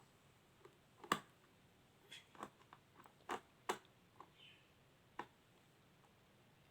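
Faint clicks and small scrapes of a screw being undone on the plastic battery cover of a toy air hockey table, with about half a dozen separate ticks at irregular intervals.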